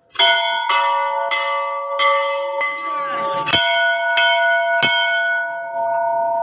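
Hanging brass temple bell rung by hand, its clapper struck against the rim about eight times at a steady pace, a little more than one stroke a second. After the last stroke it keeps ringing and slowly fades.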